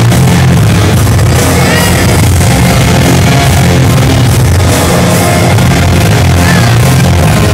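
Loud dance music with a heavy, steady bass line.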